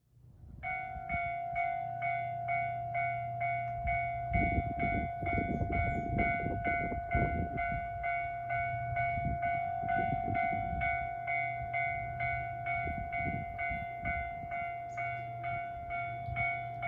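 Railway level-crossing warning bell ringing, a rapid repeating electronic clang about twice a second that starts just after the beginning: the signal that a train is approaching. A low rumble runs underneath, heaviest about four to seven seconds in.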